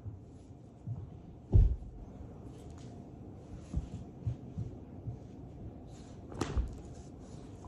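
A large dog rolling over and shifting its weight on a carpeted floor, making a few soft low thumps and rustles. The loudest thump comes about a second and a half in, and a sharper one comes at about six and a half seconds.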